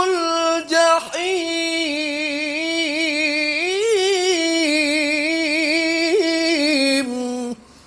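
A male qari reciting the Qur'an in the melodic tilawah style, drawing out one long ornamented note on a single breath. The pitch wavers and swells about four seconds in, and the note breaks off about seven and a half seconds in.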